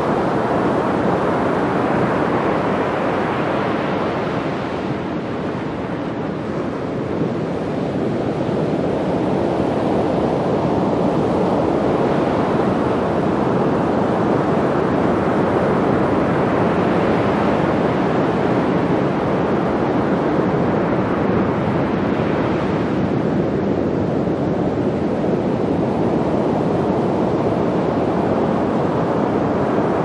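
Ocean surf: small waves breaking and washing up a sandy beach, a steady rush of water that swells and ebbs every several seconds.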